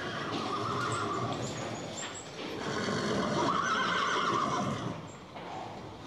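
A herd of horses whinnying, with the noise of the milling herd beneath: one shorter whinny near the start, then a longer, louder one about three seconds in.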